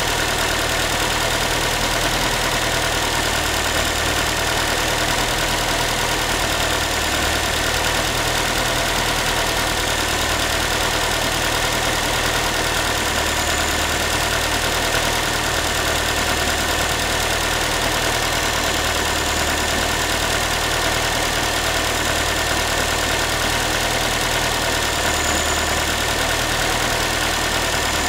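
Ford Focus 3 1.6-litre 125 hp engine idling steadily, with the tinny, saucepan-like knock that the owner hears after a cold start and cannot identify.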